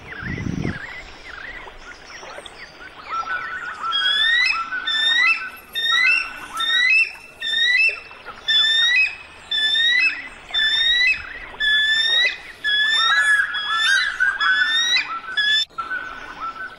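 Birdsong: a long run of short, rising chirped notes, about two a second, starting a few seconds in and stopping near the end, with a brief low thump at the very start.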